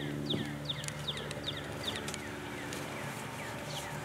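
Birds chirping: short, quickly falling chirps, two or three a second, over a steady low hum.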